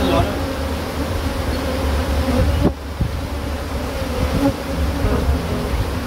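Dense, steady buzzing of a disturbed colony of Cape honeybees swarming in the air around an open hive whose comb is being cut out.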